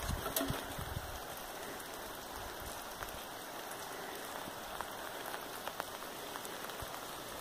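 Steady rain falling, an even hiss with a few louder drops ticking now and then; a low rumble fades out about a second in.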